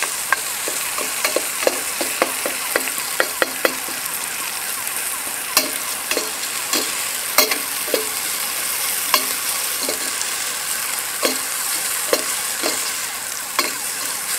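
Sliced onions sizzling in oil in a large aluminium pot while a ladle stirs them, knocking and scraping against the pot. The knocks come quickly for the first few seconds, then less often.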